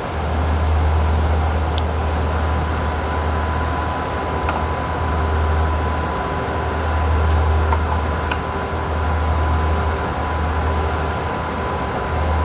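Steady low hum and rushing air of running transmitter equipment and its cooling fans, swelling and easing slowly, with a thin steady high tone over it and a few faint ticks.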